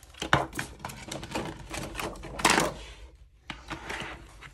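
Stiff clear plastic packaging crinkling and rustling as it is pulled off a disc-bound paper planner, with a run of light clicks and taps from handling the planner. The loudest crinkle comes about halfway through.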